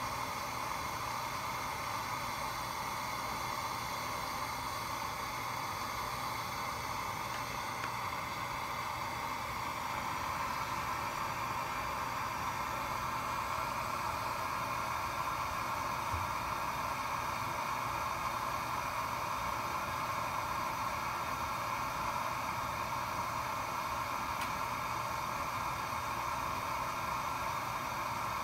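Steady hiss of rushing air from the hot-gas flow of a Finetech Fineplacer Core BGA rework station, becoming slightly louder about ten seconds in.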